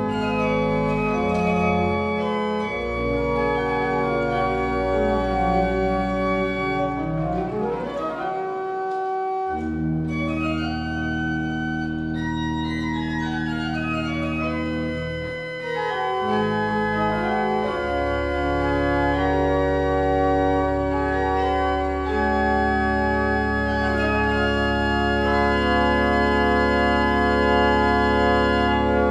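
Pipe organ playing: sustained chords over held bass notes, with a fast run climbing and then another falling about midway.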